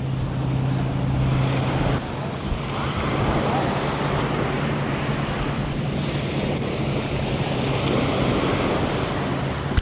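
Small surf waves breaking and washing up the sand at the shoreline, with wind buffeting the microphone. A steady low hum sits underneath, strongest in the first two seconds.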